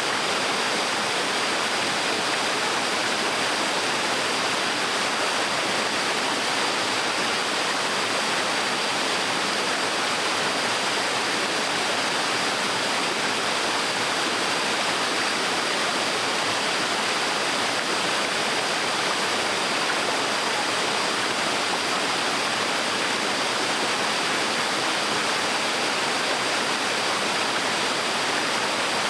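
Small waterfall splashing steadily into a stream, an even rushing of water without breaks.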